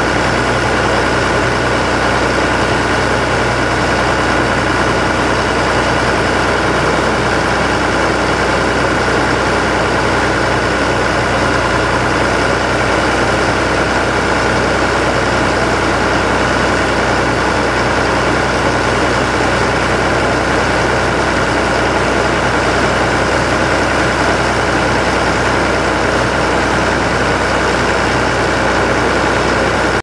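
The Al-Jon Model 400 logger/baler's engine running steadily, with a constant high whine over the engine noise.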